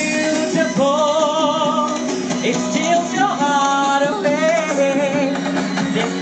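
A man singing into a stage microphone over instrumental accompaniment, holding two long notes with vibrato.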